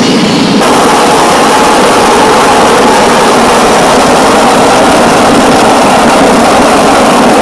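Home-built gas turbine engine running steadily and loudly: a wide rushing noise with a steady mid-pitched whine through it.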